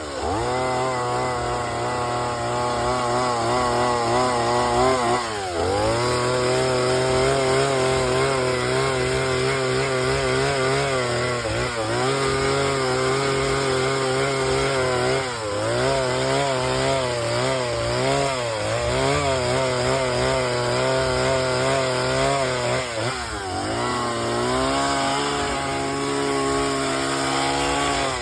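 Chainsaw running at high revs while carving wood, its engine note wavering as it cuts and dropping briefly then climbing back several times.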